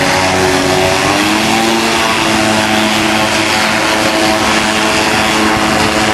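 Xenon autogyro's engine and propeller running hard as the float-equipped gyro skims across the water, the engine note rising about a second in and then holding steady.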